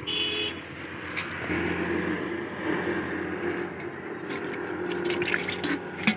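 Water splashing and sloshing in a plastic-lined bucket as a live climbing perch is put in among the catch.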